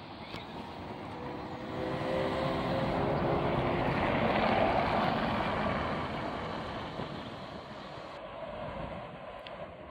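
Hydrogen fuel-cell city bus pulling away from a stop and passing close by: the hum of its electric drive with a few steady tones, loudest about halfway through and then fading. After a cut near the end, quieter sound of other buses.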